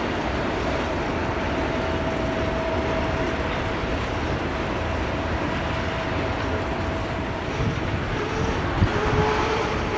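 Freight train rolling past: a steady rumble and rush of noise, with a faint steady whine that shifts to a lower pitch about eight seconds in.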